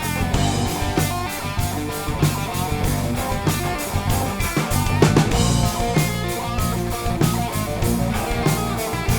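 Rock instrumental with electric guitars, bass guitar and a drum kit playing a steady beat.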